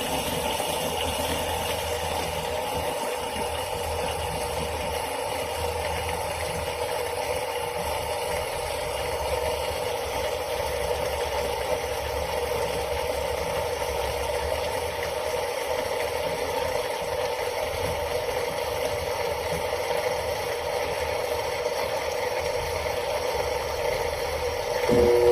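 Electrolux Turbo 10 kg top-loading washing machine running, a steady mechanical hum with some rattle. Just before the end a louder, steadier hum cuts in.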